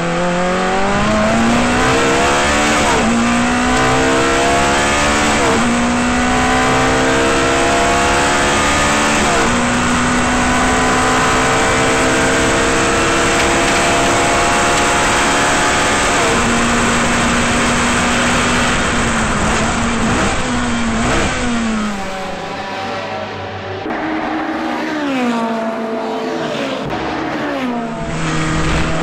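Ferrari 430 GT race car's V8 heard from the cockpit, accelerating hard through the gears with a sharp drop in pitch at each of about three upshifts, then holding high revs flat out. Later it downshifts several times under braking with quick rev blips, runs quieter off the throttle, and starts to climb again near the end.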